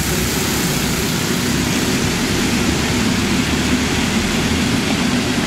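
A pack of Predator-class racing karts, with single-cylinder Predator 212 four-stroke engines, running together at racing speed as a steady, continuous engine noise.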